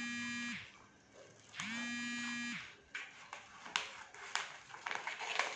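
Two steady electric buzzes, each about a second long and a second apart, followed by scissors snipping through a coloured paper sheet, a series of short sharp clicks.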